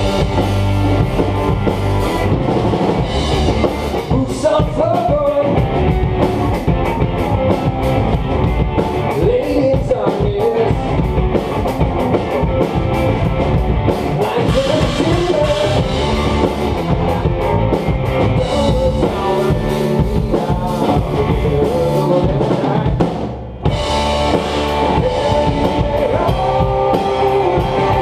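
Rock band playing live: drum kit and electric guitars driving a steady beat. The band stops for a brief break near the end, then comes straight back in.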